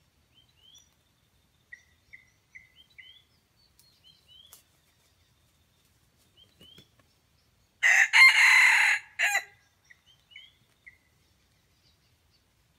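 Red junglefowl rooster crowing once, about 8 seconds in: a loud, short crow under two seconds long, with a brief break near its end. Short, rising high chirps from a small bird come and go around it.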